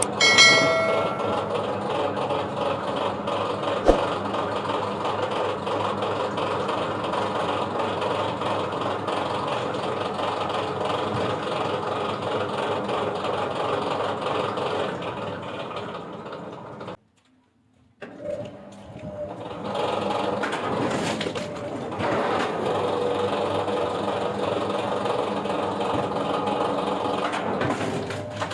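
Wood-processing machinery running steadily, with a motor's drone under continuous mechanical clatter. A single sharp knock about four seconds in. The sound cuts out for about a second past the middle, then similar machine noise resumes.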